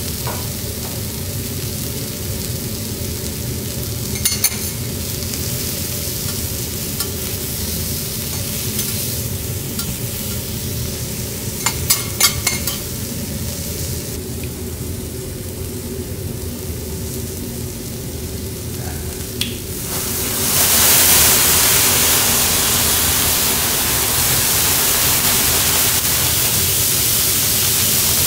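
Beef steak sizzling on a steel teppanyaki griddle, with a few sharp clicks of a knife and fork against the steel plate. About twenty seconds in, a loud steam hiss starts suddenly and continues.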